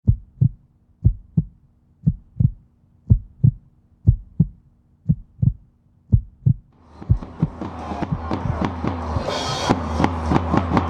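Batucada drum band: the bass drums beat a heartbeat-like pattern, two low strokes about once a second. About seven seconds in, the rest of the drums join with dense, fast strokes, building louder.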